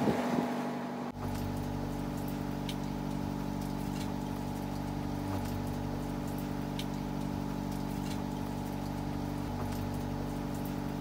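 Sailboat's inboard engine running at a steady, even drone from about a second in, while the boat motors through rough water.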